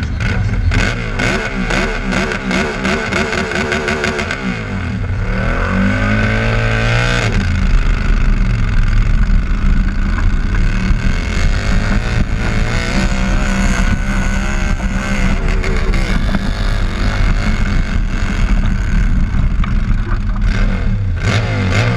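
Motorcycle-engined garden pulling tractor running hard under load, pulling the weight sled. Its engine note climbs between about four and seven seconds in, then holds high and steady.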